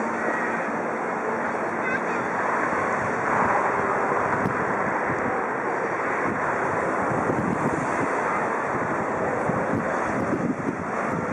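Steady rushing noise of wind buffeting the microphone over choppy river water, with no distinct engine or paddle beat.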